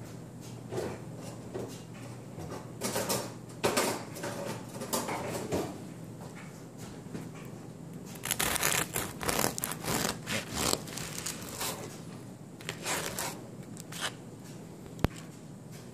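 Serrated bread knife sawing through the crusty sourdough loaf in several runs of rasping strokes, the loudest run in the middle, with a single sharp click near the end.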